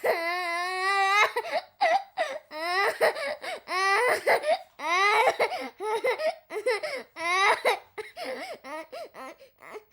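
A woman crying and sobbing in high-pitched wails: one long wavering wail at the start, then a run of short rising sobs with catches of breath between them.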